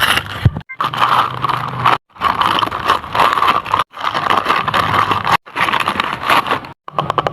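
Packaging being handled while packing paper squishies: scraping and crinkling in short stretches that cut off abruptly, ending in a quick run of clicks.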